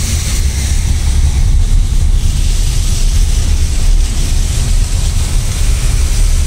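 Steady road noise heard from inside a moving car on a wet road in rain: a deep, even rumble with a hiss of rain and tyre spray over it.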